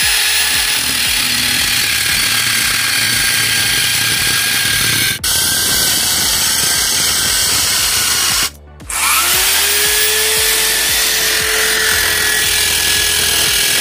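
Angle grinder fitted with a toothed wood-cutting disc, running at full speed and cutting through pallet boards with a steady high whine. It stops briefly twice, the second time about eight and a half seconds in, then spins back up with a slightly rising whine.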